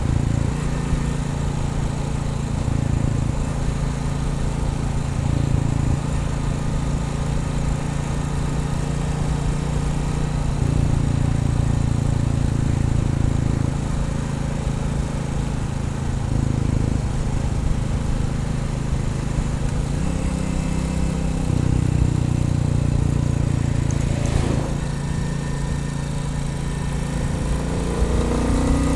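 Royal Enfield Bullet 350's single-cylinder engine running on the road, its pitch stepping up and down with throttle and gear changes and rising near the end as the bike accelerates. A brief click is heard about two-thirds of the way through.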